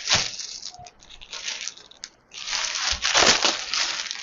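Rustling and crinkling of dresses and their wrapping being handled, in two uneven spells: a short one at the start and a longer one from a little past halfway.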